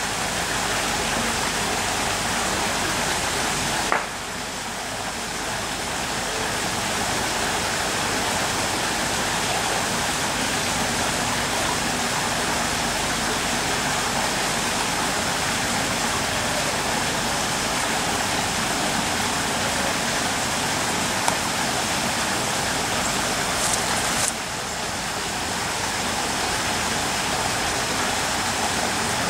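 Steady outdoor rushing noise with no distinct events, dropping slightly in level about 4 seconds in and again near 24 seconds.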